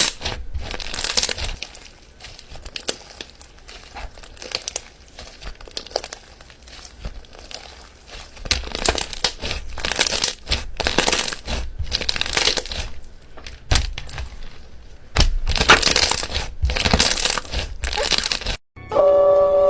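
Slime being squeezed and pressed by hand, giving irregular crunching and crackling pops in bursts. Near the end it cuts out briefly and music begins.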